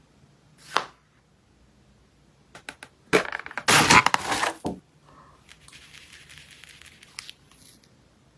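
Packaging being torn open by hand: a short rip under a second in, a few clicks, then a loud longer tear about three seconds in, followed by quieter crinkling.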